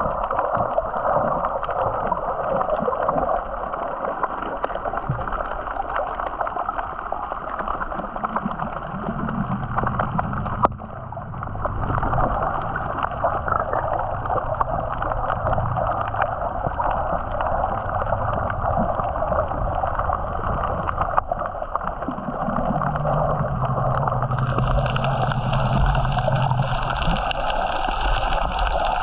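Sea water rushing and gurgling steadily against the hull of a moving boat, with a low hum that comes and goes. One sharp knock sounds about eleven seconds in.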